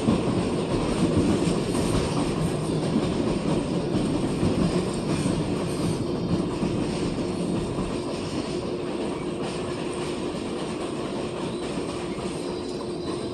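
New York City #6 subway train heard from inside the car while running: a steady rumble of wheels on rail with a faint steady hum, growing gradually quieter across the stretch.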